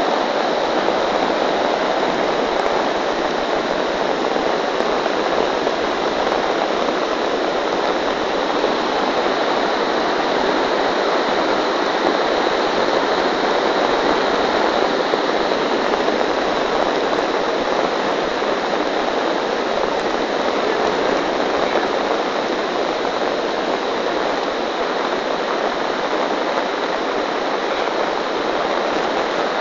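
Steady rushing of a swollen river in flood, muddy storm floodwater pouring past in an unbroken torrent.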